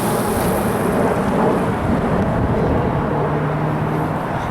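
Steady rumbling wind noise on the microphone, with a faint wavering high whine from a Pro Boat Zelos twin-motor RC catamaran running on the water.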